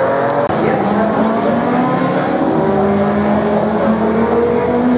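Several classic racing car engines running at once under acceleration, their pitches climbing steadily and overlapping.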